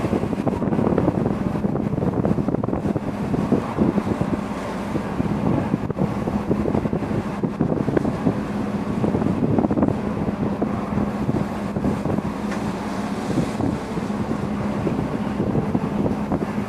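Wind buffeting the microphone over the rush of sea water churning along a cargo ship's hull, with a steady low engine hum underneath.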